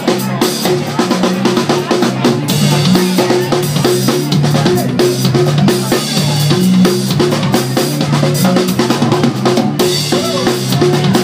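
Funk band playing live: a busy drum kit with kick and snare over a stepping bass line, with guitar, heard from the crowd.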